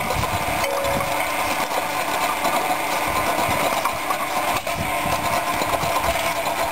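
Vortex Marine Rotary Hoe's hydraulically driven tynes churning steadily through crushed aggregate, the stones rattling and clinking against the steel tool over a continuous mechanical drone.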